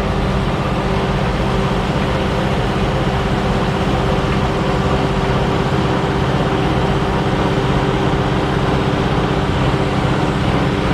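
Engine of a farm machine running steadily at one constant speed, a continuous hum with no change in pitch.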